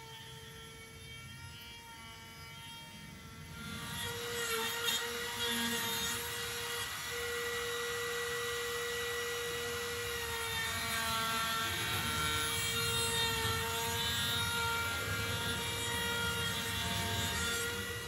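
Milwaukee cordless router running at speed with a steady high whine. From about four seconds in, its round-over bit cuts along the edges of small wooden blocks, adding a louder rushing cutting noise over the whine.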